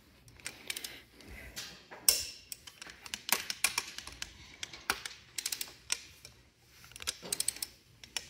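Ratcheting torque wrench clicking in short runs of rapid clicks as connecting-rod cap bolts are tightened to 55 pound-feet, with one sharper, louder click about two seconds in.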